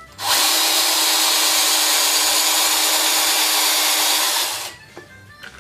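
Power tool spinning a worn, grooved rubber typewriter platen against sandpaper to resurface it: a steady grinding hiss over a faint motor hum, starting a moment in and cutting off after about four and a half seconds.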